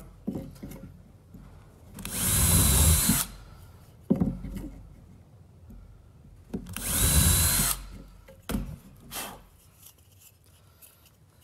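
Cordless drill boring pilot holes in small pine blocks: two bursts of about a second each, a few seconds apart, the motor whine climbing as each one spins up. A few light knocks of wood being handled between them.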